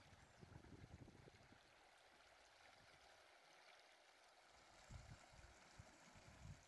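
Near silence: a faint hiss with a few soft low bumps and rustles of hands handling thread and materials at a fly-tying vise.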